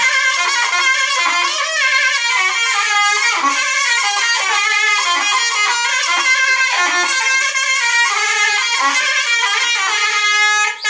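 Solo reed woodwind played live, a fast ornamented melody of many quick notes and slides, with a strong, bright tone. The playing dips briefly near the end, then carries on.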